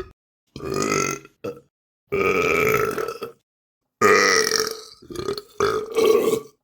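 A sequence of separate human burps: three long, loud ones and a few shorter ones, each starting and stopping abruptly with silent gaps between.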